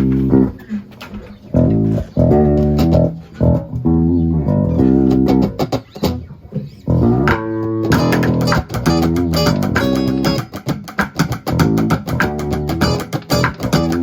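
Live band playing the instrumental opening of a song: guitar and bass chords in short stabs with brief gaps, filling out about eight seconds in into a steady groove with rapid bright ticks over it.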